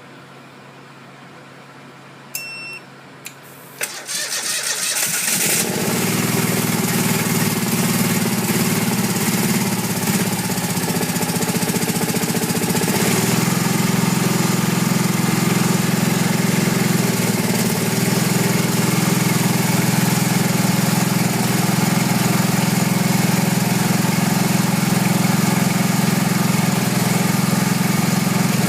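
Wood-gas generator set cold start: a short beep and a click, then the engine is cranked by its starter motor, catches after about a second and a half and settles into steady running. In wood-start mode it starts on propane.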